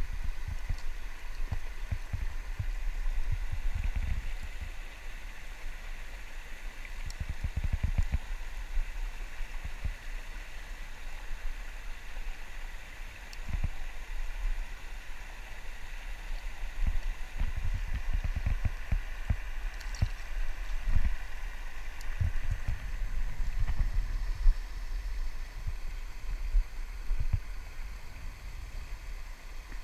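Steady rush of river water pouring over a low concrete weir, with irregular low rumbles on the microphone coming and going.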